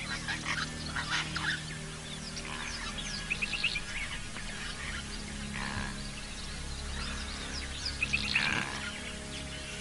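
Wild birds calling: scattered short chirps and two quick runs of rapid repeated notes, the louder one near the end, over a low steady hum.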